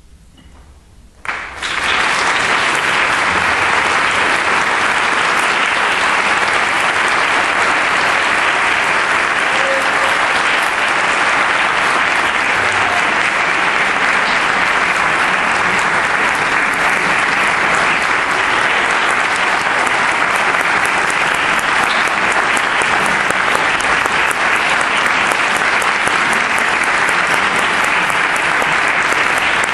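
Audience applause that starts suddenly about a second in and continues steadily.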